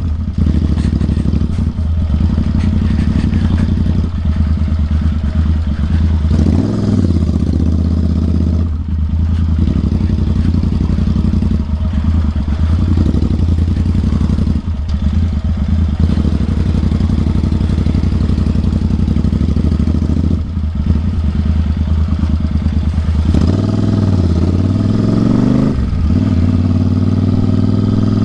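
Royal Enfield Interceptor 650's parallel-twin engine running loud through a full-system Atom aftermarket exhaust while riding. The deep exhaust note dips briefly several times and climbs in pitch on a couple of revs, around a quarter of the way in and again near the end.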